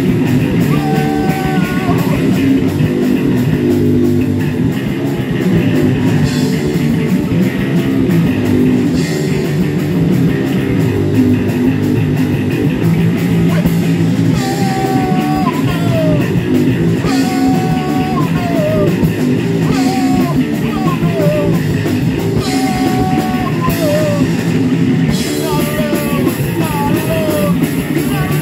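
Live rock band playing: electric guitar, electric bass and drum kit at full volume, with a higher melody of sliding, bending notes coming in about halfway through.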